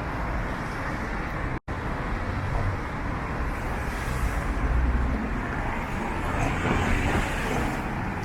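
Road traffic passing on a city street, with a steady low rumble from wind on the microphone. The sound cuts out for an instant about a second and a half in.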